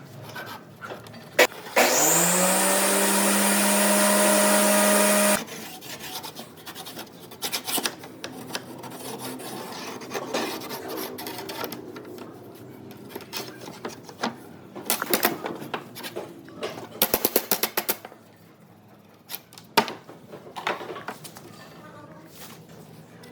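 An electric power tool's motor spins up about two seconds in, runs steadily for about three and a half seconds and stops abruptly. Around it are workshop handling sounds: scraping, knocks and clicks, with a quick run of clicks later on.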